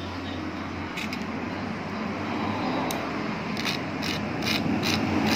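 A utility knife blade scraped and dragged across the beaded surface of a stingray-leather wallet, making a rasping scrape with sharp clicks that grows louder. The blade skids over the hard, bead-studded skin without cutting into it.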